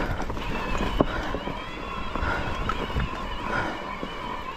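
Mountain bike rolling over a rough trail: a steady rumble of tyres and wind on the camera mic, with short knocks and rattles, the sharpest about one second and three seconds in.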